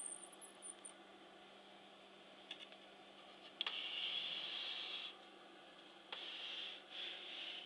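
Handling sounds on a vintage Argus slide projector and its metal case: a brief faint squeak, a few sharp clicks and two stretches of scraping, over a steady faint hum.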